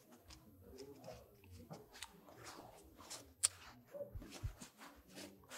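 Paper banknotes rustling and crinkling as they are handled and counted, a run of short dry crackles with one sharper crackle about three and a half seconds in.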